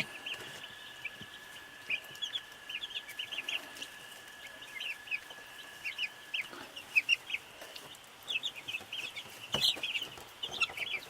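A brood of young chicks and turkey poults peeping: many short, high cheeps, thick in places, over a faint steady high tone that stops about two-thirds of the way through. A single knock comes near the end.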